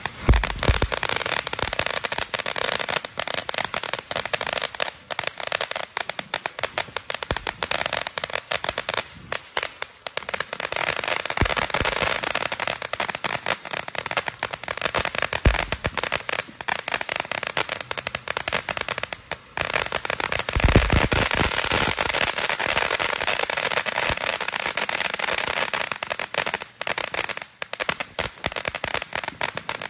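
Blue Dragon 'Ghost Rider' firework firing shot after shot: dense, continuous crackling throughout, with a few deeper thumps as shots launch and break, the strongest about two-thirds of the way in.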